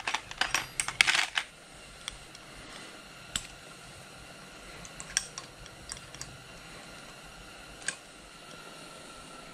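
Small metal clicks and rattles of a brass oil-line fitting and a small hand tool being handled while the hose is fastened to its bracket: a quick cluster of clicking in the first second and a half, then single clicks every second or two. A faint steady hum runs underneath.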